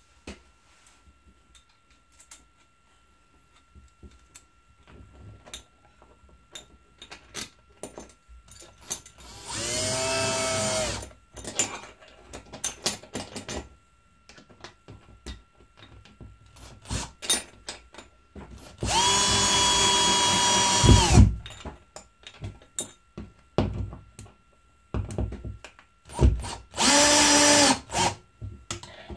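Cordless drill-driver driving screws through a roller-blind's metal wall bracket. The motor runs three times, for about one and a half to two seconds each, roughly ten seconds in, near the middle and near the end. Short clicks and knocks from handling fall between the runs.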